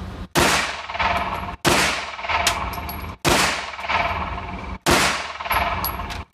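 Canik pistol fired in slow, deliberate single shots, four shots about a second and a half apart, each loud crack trailing off in a long echo.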